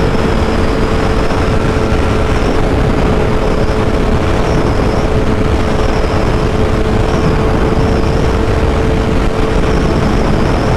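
Suzuki GSX-R 1000 inline-four sport bike cruising at steady highway speed. Heavy wind rush on the microphone carries a steady engine hum at an unchanging pitch.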